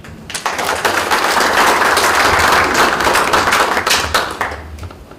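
Audience applauding: the clapping starts about half a second in, holds loud and dense, then dies away near the end.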